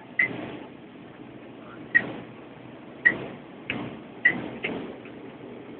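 About six sharp clicks, each with a short ringing ping, come at irregular intervals over the steady cabin drone of a Fokker F27 Friendship's turboprop engines.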